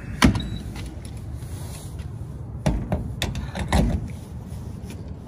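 Gas-pump fuel nozzle being handled: a sharp clunk about a quarter second in as it comes off the pump, then a quick run of knocks and clicks about three seconds in as it is fitted into the truck's filler neck, over a low steady rumble.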